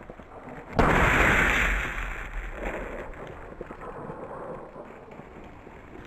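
A shotgun shot about a second in, its report dying away over the next few seconds.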